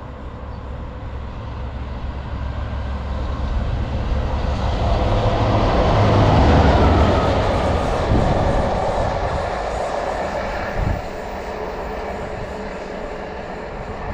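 Diesel train passing through at speed. Its engine hum and the rush of its wheels grow louder to a peak about six or seven seconds in, then fade as it goes by.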